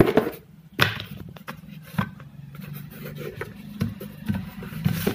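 Handling sounds as a betel leaf is taken from a container: several sharp knocks and rustles, over a low steady hum.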